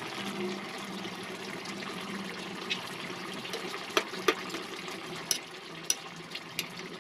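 Coconut-milk broth bubbling at a simmer in a wide metal pan, over a low steady hum. A spoon stirring the stew clinks against the pan about six times in the second half.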